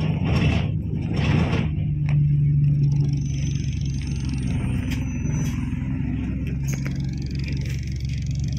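Bus engine and running noise inside the passenger cabin, a low steady hum that steps up in pitch about two seconds in and settles lower again later, with a few small clicks and rattles.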